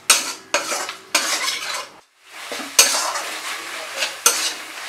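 Metal spatula scraping and stirring spice paste around a metal kadai while the masala sizzles in oil and ghee: the spices being fried down (kashano) with a splash of water so they don't stick. The strokes come one after another, with a short break about two seconds in.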